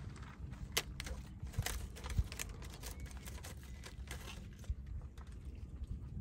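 Light clicks and taps of a spoon and plastic bowls and food containers being handled during a meal, scattered irregularly over a low steady rumble.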